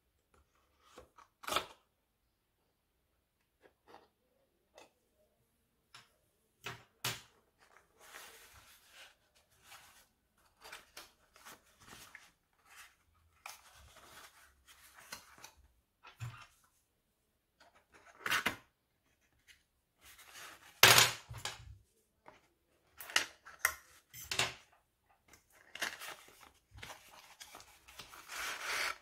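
Cardboard cologne box being opened by hand: a hobby knife slitting the packaging, then paperboard flaps lifted and an inner tray slid out, giving scattered clicks, taps and crinkling rustles. It starts with a single sharp click, grows busier later, and the loudest crackle comes about two-thirds of the way through.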